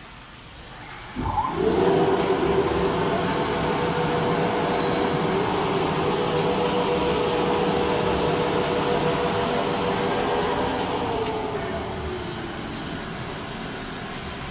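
Automatic four-side sewing machine (overlock and lockstitch) running: its drive starts suddenly about a second in with a loud steady hum, holds for around ten seconds, then winds down, falling in pitch and level near the end.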